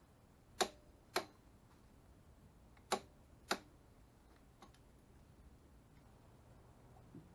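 Sharp metallic clicks of a click-type torque wrench tightening the transmission mount bolts. They come as two pairs about half a second apart, then a couple of fainter clicks near the end.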